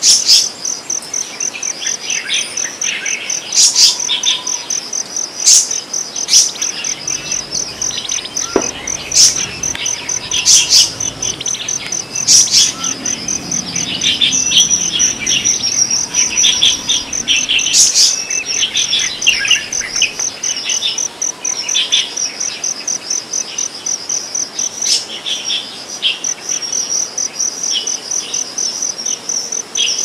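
A steady, fast-pulsing high insect trill, with small birds chirping and giving sharp chips over it every second or two.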